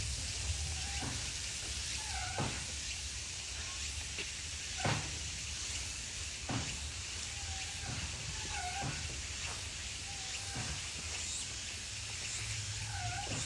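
Japanese macaques giving short, arched coo calls, one every second or two, over a steady hiss. A few sharp knocks come between the calls.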